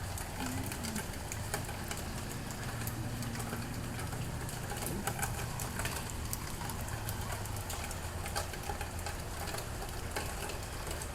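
Steady rain falling: an even hiss dotted with many small drop ticks, over a low steady hum.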